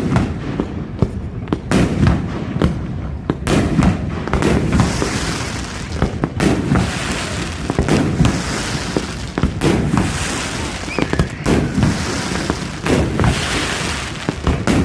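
Fireworks display: a steady run of sharp bangs from bursting shells, with a long crackling hiss following several of the bursts.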